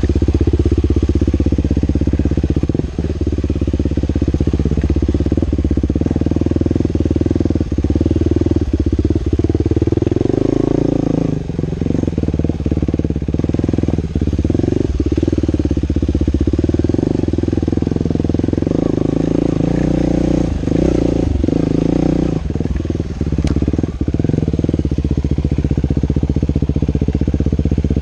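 2011 Husqvarna TE 449's single-cylinder four-stroke engine running while the dirt bike is ridden, its pitch rising and falling with the throttle and briefly dipping several times as the throttle is rolled off.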